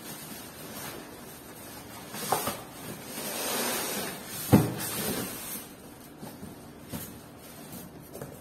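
Unpacking a PC case from its cardboard box: cardboard flaps and foam packing blocks scraping and rustling as the foam-packed case slides out, with a sharp thump about halfway through and a few light knocks near the end.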